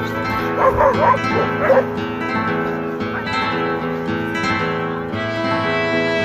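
Background string music, fiddle and guitar, runs steadily. Over it, sled dogs bark several times between about half a second and two seconds in.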